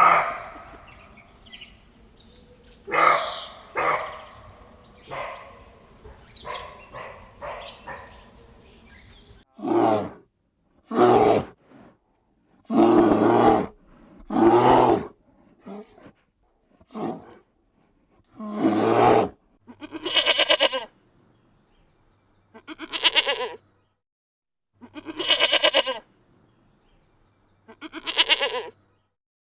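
Farm animals bleating: a first stretch of mixed calls, then a series of separate loud bleats a second or two apart, the later ones quavering.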